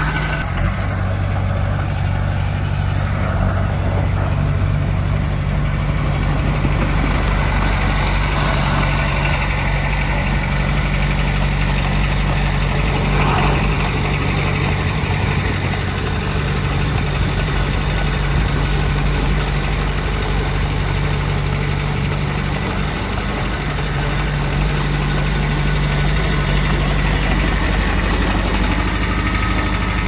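Komatsu D20P bulldozer's diesel engine running steadily, a low even hum whose pitch shifts slightly now and then.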